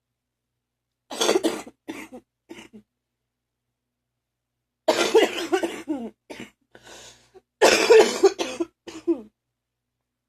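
A person's wet, phlegmy cough in three bouts of several coughs each, the first about a second in, the next about five seconds in, and the last about eight seconds in: a morning cough bringing up phlegm.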